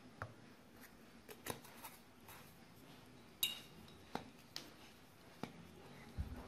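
Faint, scattered clicks and light clinks from kitchen utensils being handled: a plastic spoon and the plastic cup of an electric grinder. The sharpest is a short ringing clink about halfway through.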